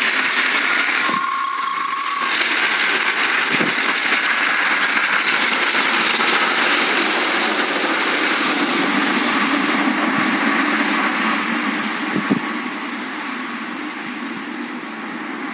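Boeing 777 freighter's GE90 jet engines during the landing rollout: a loud, steady rushing noise that eases off about twelve seconds in as the aircraft slows and moves away. A brief click shortly after.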